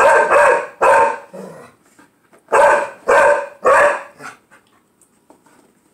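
A pit bull barking in play over a toy the other dog holds: two loud barks in the first second, then three quick barks starting about two and a half seconds in.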